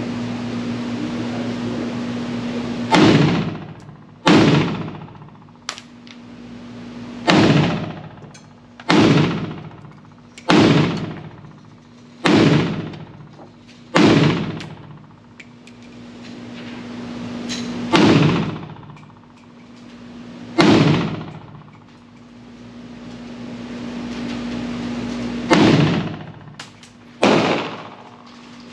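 Pioneer Arms Hellpup 7.62x39 AK-pattern pistol firing about eleven single shots at uneven intervals of one to five seconds, each shot ringing out briefly. A steady low hum sits underneath between shots.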